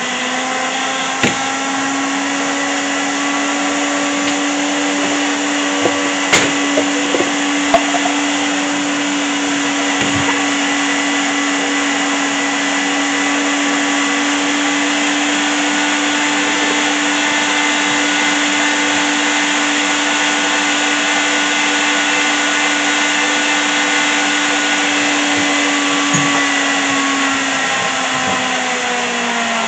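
Electric kitchen blender running loud and steady for the whole stretch, its motor pitch dropping slightly near the end.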